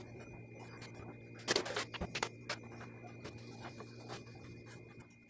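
Rubber-gloved hands wiping and scrubbing the top of a cabinet with a cloth: scratchy rubbing with a few knocks, the loudest cluster about one and a half seconds in. A steady low hum runs underneath.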